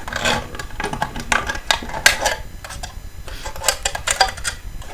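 Scissors cutting and crinkling the thin aluminium wall of a drink can to enlarge a hole in it: an irregular series of sharp clicks and crackles.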